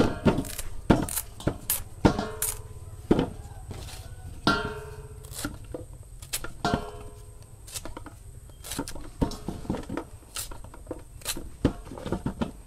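Knife peeling and trimming green bananas over a stainless steel bowl: scattered clicks, scrapes and knocks, with the metal bowl ringing briefly about three times when struck.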